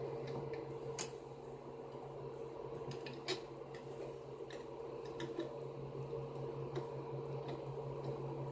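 A steady low machine hum with light clicks and taps scattered through it, the sharpest about a second in and about three seconds in.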